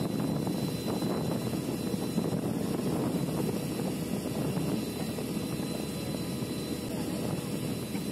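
Speedboat engine running steadily under the rush of wind and water, a rough continuous drone.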